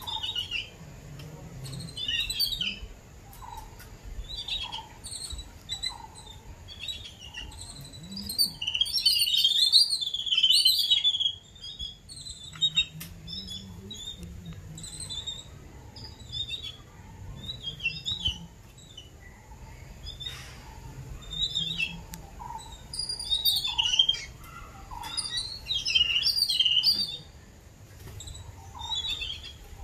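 Babblers calling around a cage of their chicks: a run of short, high chirps and chatter that is loudest about eight to eleven seconds in, with lower short notes about once a second in the first half.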